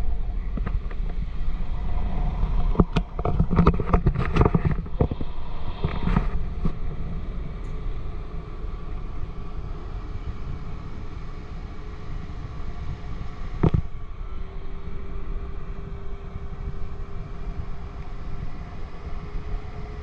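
Motorboat engine running steadily under heavy wind buffeting on the microphone, with a few knocks in the first few seconds and a steady engine tone coming in after about fourteen seconds.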